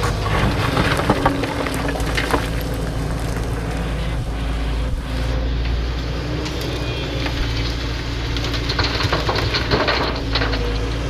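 Excavator's diesel engine running steadily, with scattered knocks and rattles from the machine at work.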